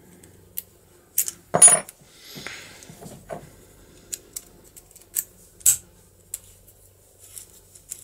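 Sharp metallic clicks and clinks from a DOM IX profile lock cylinder with a gear-ring cam as a key is pushed in and turned to test it after reassembly. The loudest is a clattering clack about one and a half seconds in, followed by a softer scrape and a few scattered ticks.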